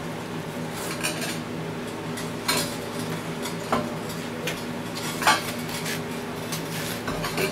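Steel bench-grinder pedestal stand being shifted across a concrete floor, its base plate giving a few light metallic knocks and clanks over a steady low hum.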